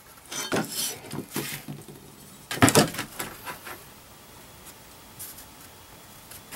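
Hand tools handled on a workbench: scratching and scraping as a pencil and tape measure work over an aluminium sheet, then a louder sudden clatter about two and a half seconds in as a flat steel bar is set down on the sheet, with a few lighter knocks after it.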